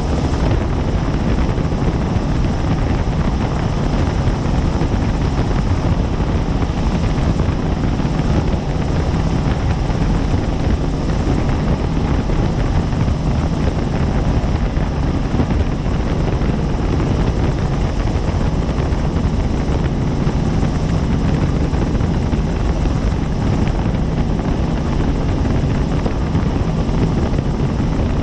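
Helicopter in flight, its rotor and engine running with a steady, loud drone that does not change.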